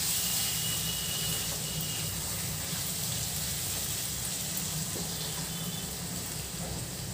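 Chicken fry (chicken in onion-masala gravy) sizzling softly in a nonstick kadai as a spatula stirs it. The sizzle fades slowly because the stove has been switched off.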